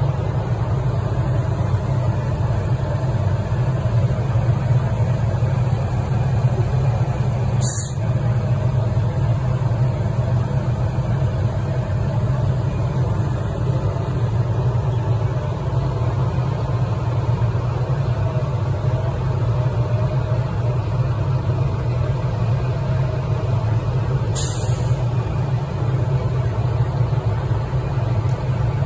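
Fire engine running with a steady low drone. Two short hisses cut in, about eight seconds in and again near the end.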